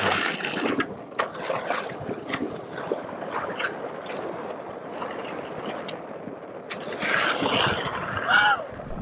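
Skateboard wheels rolling on rough asphalt: a steady gritty rumble with a few sharp clacks, getting louder and busier near the end.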